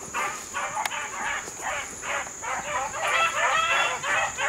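Beagles baying in quick, repeated, yelping calls, about three a second, several voices overlapping and growing louder about three seconds in.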